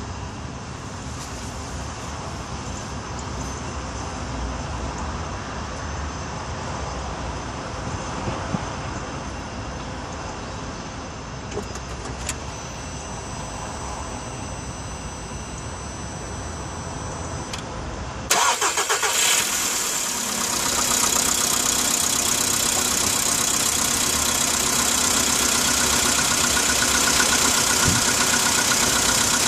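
Car engine started from cold: after a steady low rumble, with a thin high tone for a few seconds, the starter cranks briefly about 18 seconds in. The engine catches and settles into a louder, steady cold idle, with the knock on a cold engine that is the owner's complaint.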